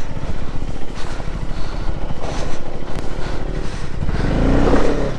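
Motorcycle engine pulling hard over a rocky off-road track, its revs rising near the end.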